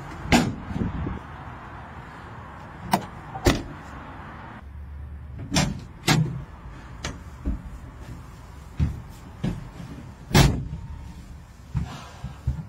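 About a dozen sharp clunks and knocks from the metal doors, panels and bench seats of an old utility vehicle's body, the loudest about ten seconds in, over a steady background noise.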